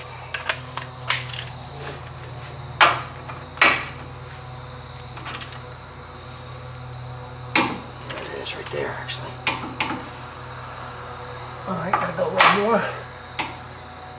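Metal hand tools clinking and clanking as they are picked up and set down: about ten sharp, irregularly spaced knocks over a steady low hum.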